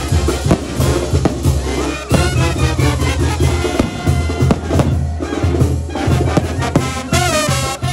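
Mexican banda music: a brass band with bass and drums playing, with a fast wavering melodic run near the end.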